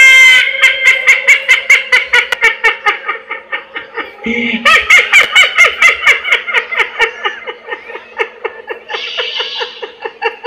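A loud, rapid villain's cackle, 'ha-ha-ha' at about six pulses a second, from the actor playing the demoness Tataka. It breaks off briefly about four seconds in, starts again, and grows fainter toward the end.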